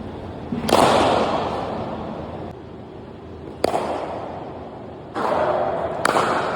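Cricket bat striking the ball: three sharp cracks a few seconds apart, the clean sound of the ball coming off the middle of the bat, each followed by a fading wash of noise.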